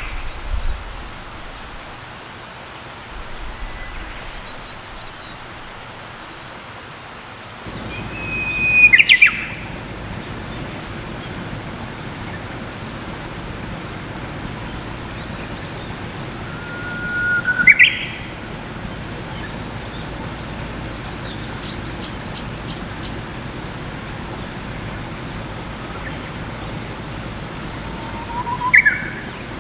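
Japanese bush warbler (uguisu) singing its 'hoo-hokekyo' song three times, about ten seconds apart. Each song is a held whistle followed by a quick rising flourish.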